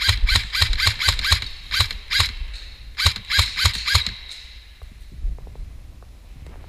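Airsoft rifle firing rapid single shots, about five a second, in three quick strings that stop about four seconds in, followed by a few faint taps.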